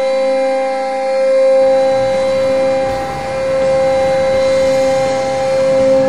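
Hockey arena goal horn sounding one long, loud, steady blast of several tones at once, with a rushing noise joining underneath about a second and a half in.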